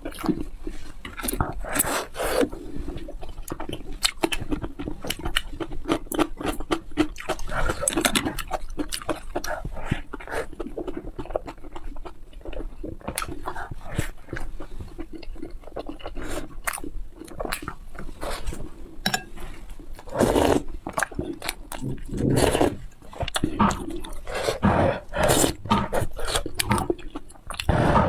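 Close-up eating sounds: irregular wet chewing and smacking of food.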